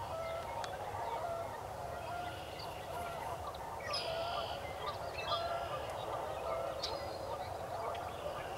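A chorus of many animals calling: short, overlapping calls repeat throughout, with a few higher, thinner calls about four seconds in.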